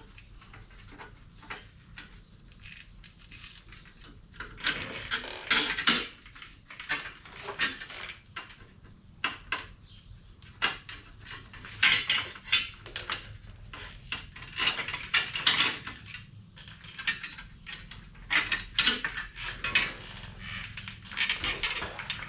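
Irregular metallic clinks, taps and rattles from handling U-joint parts and hand tools. The clicks come in dense flurries with quieter gaps between them.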